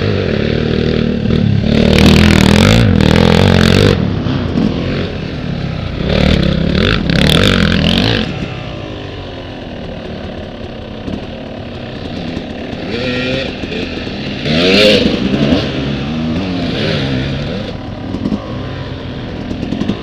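Off-road dirt bikes racing past one after another, engines revving up and dropping back as each one comes by and fades off. The loudest passes come in the first eight seconds, with another about fifteen seconds in.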